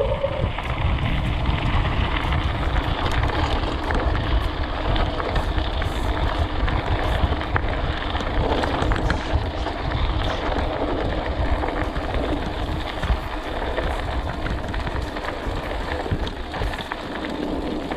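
Wind buffeting the microphone and a mountain bike's tyres rolling over loose gravel on a fast downhill run, with small rattles and clicks from the bike over the rough surface.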